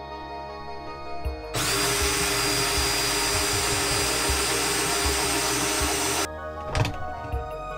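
Cordless drill running at a steady speed for about five seconds as it bores into a boat's cabin wall panel, then stopping abruptly, with a short knock just after. Soft background music plays throughout.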